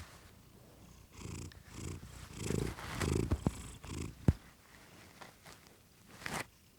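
Domestic cat purring close by, in soft pulses about twice a second that fade out after about four seconds. A single sharp click, the loudest sound, comes a little after four seconds in.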